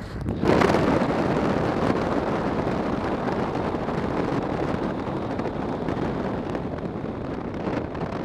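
Wind rushing over an action camera's built-in microphone: a loud, steady rushing noise that swells about half a second in.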